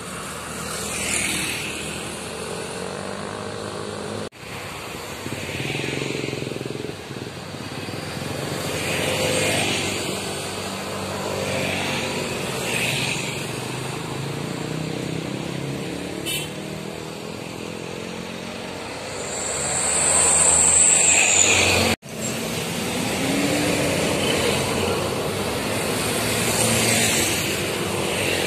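Road traffic going by close at hand: motorcycles, cars and heavier vehicles passing one after another, each swelling and fading. About two thirds of the way through comes the loudest moment, a high-pitched squeal that falls slightly in pitch over about two seconds. The sound cuts out briefly twice.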